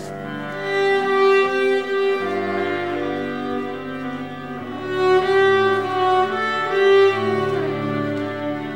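Slow bowed-string music, violin and cello, holding long overlapping notes that swell and fade, with a falling slide near the end.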